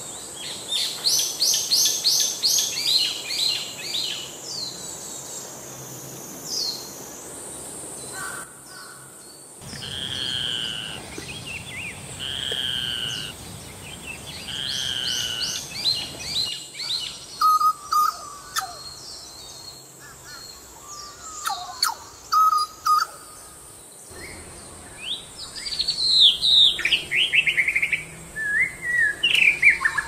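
Calls and song from several different birds, switching abruptly every several seconds. First comes a fast run of high notes, then a two-note call repeated about every two and a half seconds, then scattered short calls, and in the last few seconds a varied song of quick falling phrases.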